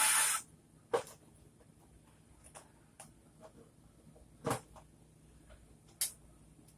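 A few scattered sharp clicks and light knocks of small motorcycle parts and tools being handled during a fuel filter and fuel regulator job, about five in all, the loudest a bit past the middle. A short burst of hissy noise cuts off about half a second in.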